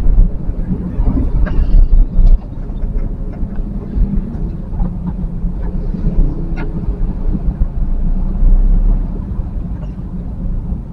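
Street traffic heard from a vehicle driving slowly among motorcycles and cars: a steady low rumble of engines and road noise. A few brief sharper sounds from the traffic cut through it, the clearest about six and a half seconds in.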